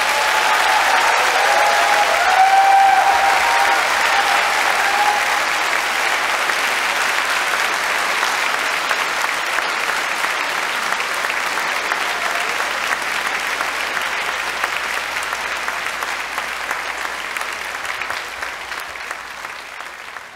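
Large concert-hall audience applauding, with a few voices calling out near the start. The applause slowly fades out over the last few seconds.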